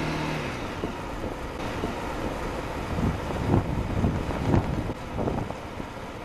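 Honda CRF250L dual-sport motorcycle riding at road speed, heard through a handlebar-mounted dash cam's microphone: mostly wind rush and buffeting over the mic, with the engine running beneath it. Several louder gusts thump through the middle.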